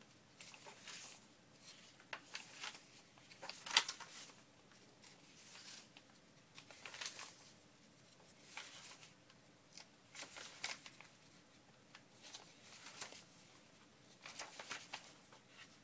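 Sheets of paper faintly rustling and sliding as they are handled and stacked, in short bouts of rustling. A sharp tap about four seconds in is the loudest sound.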